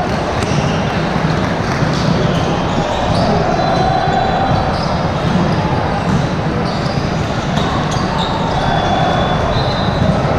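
Steady din of a large indoor volleyball tournament hall: many voices of players and spectators chattering at once, balls being struck and bouncing on the courts, and scattered short high squeaks, all echoing in the big hall.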